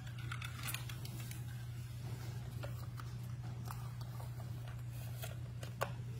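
Scattered small clicks and rustles of hands handling a plastic toy car and soft cloth on a cushion, the sharpest click near the end, over a steady low hum.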